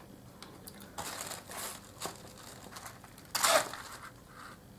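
Plastic snack-bar wrapper crinkling as it is handled, in a few short rustles, the loudest about three and a half seconds in.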